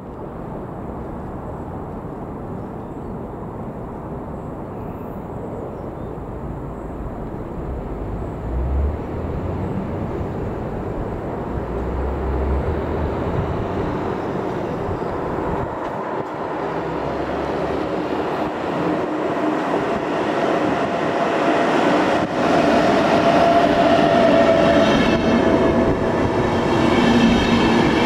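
VR InterCity train, an electric locomotive hauling double-deck coaches, approaching and rolling past on the rails, its rumble growing steadily louder. Near the end, as the coaches pass close, high steady whining tones rise over the wheel noise.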